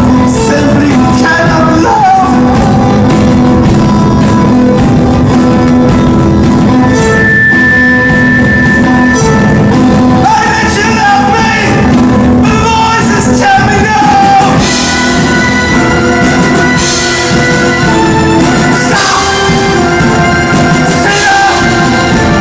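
Live rock band playing a song with lead vocals, electric guitar, bass guitar, violin, keyboards and drums.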